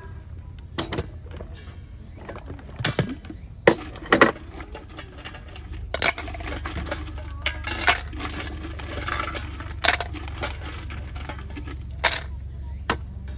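A dozen or so sharp clicks and knocks of objects being handled, the loudest pair about four seconds in, over a steady low hum.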